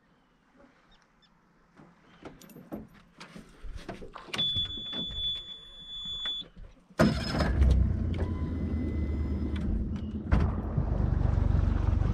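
Clicks and knocks of handling on a metal boat, with a brief steady high beep, then about seven seconds in a boat motor starts suddenly and runs steadily with a low rumble.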